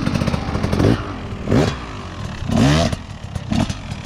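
KTM enduro motorcycle engine running close by, first at a steady idle, then revved in several short blips that rise and fall in pitch as the bike pulls away.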